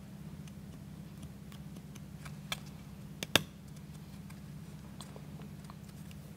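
Light clicks and taps of plywood model-kit parts being handled as small wooden pegs are fitted into the chassis frame, with a few sharp clicks, the loudest about three seconds in, over a steady low hum.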